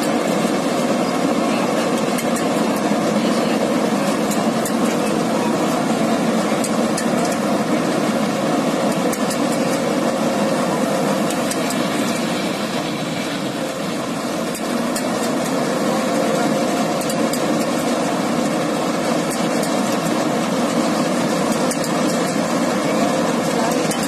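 Standard TSC-513 tractor-mounted combine harvester running steadily as it harvests ripe rice: the tractor engine and the harvester's cutting and threshing machinery make one loud, even drone.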